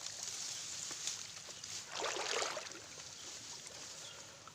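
Footsteps wading and swishing through shallow pond water and wet vegetation, with a louder splash about two seconds in.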